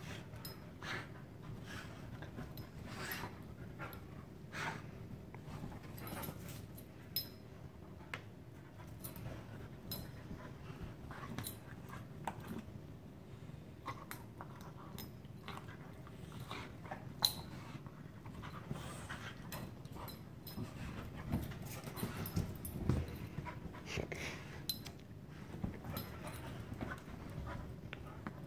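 Two dogs play-fighting on a fabric-covered couch: panting and scuffling, with many short sharp clicks throughout and a few louder ones in the second half.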